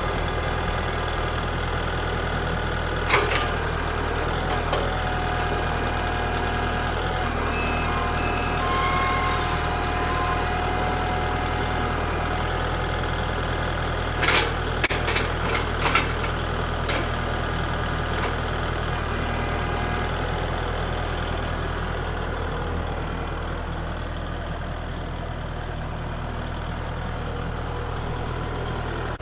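Kubota tractor's diesel engine running steadily, with a thin whine in the middle stretch and a few sharp knocks, about three seconds in and again around fifteen seconds.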